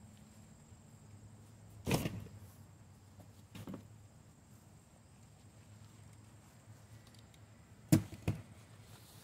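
Cardboard boxes being handled and set down: a dull thud about two seconds in, a softer one a little later, and two sharp knocks in quick succession near the end, the second knock the louder of the pair.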